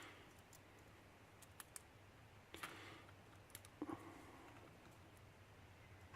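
Faint metal clicks and scrapes as a shim is worked into a gap at the back of a lock. There are a few irregular ticks in the first half, the most distinct a little over two and a half seconds in, with a pair near four seconds.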